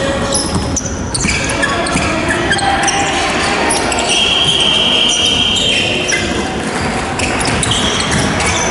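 Basketball game noise in a large gym: sneakers squeaking on the wooden court, scattered footfalls and players' voices. About four seconds in, a steady high tone lasts around two seconds.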